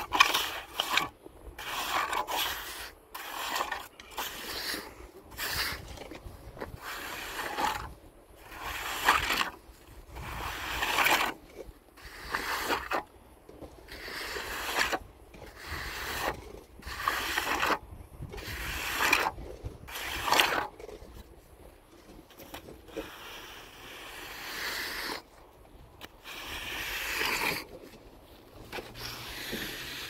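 A shovel scraping in repeated strokes, one every second or two, as cement mix is shovelled.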